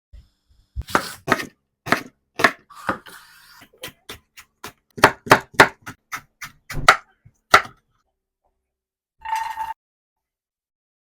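Knife chopping vegetables on a cutting board: a run of sharp, irregular chops, about two or three a second, that stops about two-thirds of the way through. A short sound with a ringing note follows a little later.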